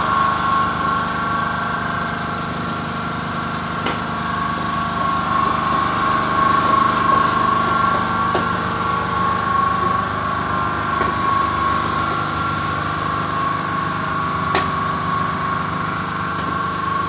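A steady mechanical drone with a high, even whine over a low rumble, like a motor or fan running continuously, with a few faint ticks.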